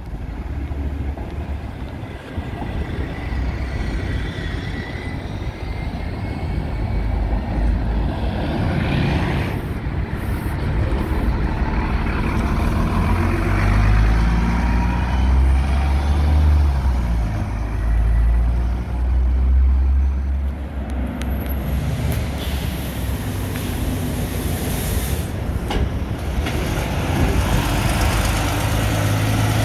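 Diesel bus engines running as buses pull past close by. The loudest is an Alexander Dennis Enviro400 double-decker going by about halfway through, and a coach passes near the end.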